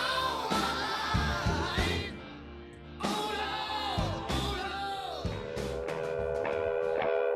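Background music: a song with singing over a steady beat, dropping back briefly about two seconds in before a guitar part with quick repeated notes comes in.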